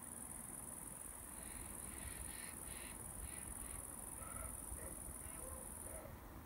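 An insect trilling in a steady high-pitched buzz that cuts off near the end.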